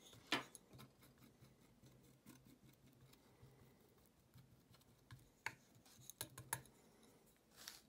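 Faint scraping of a metal palette knife spreading thick gold paint over a wooden board, with a few sharp clicks and taps of the blade, most of them in the second half.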